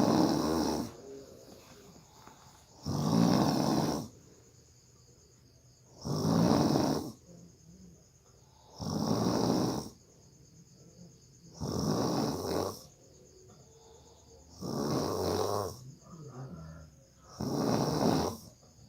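A person snoring hard in their sleep: a loud, rasping snore about every three seconds, seven in all, with quiet breathing gaps between.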